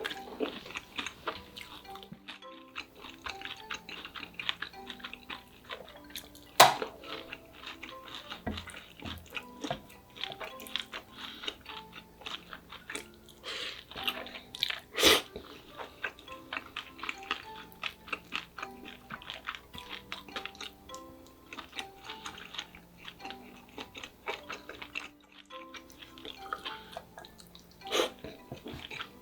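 Close-miked eating sounds: chewing and crunching, with sharp clicks, two louder ones about six and a half and fifteen seconds in, over soft background music.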